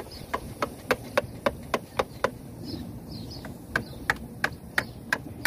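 Sharp knocks from a hand tool working on a black pipe repair fitting, repeating evenly about three to four times a second, with a short pause near the middle.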